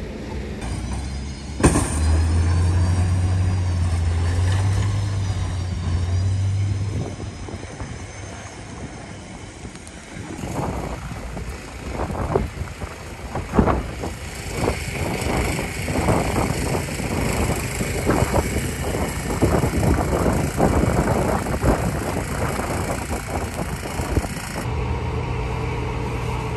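Snow plows running on a snow-covered city street: a sharp clank about two seconds in, then a loud low engine drone for several seconds, later a long run of irregular knocks, and near the end the steady engine hum of a plow tractor.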